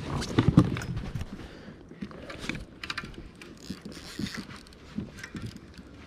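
Knocks, clicks and short water splashes on a kayak while a hooked flathead is brought alongside, the loudest knocks in the first second.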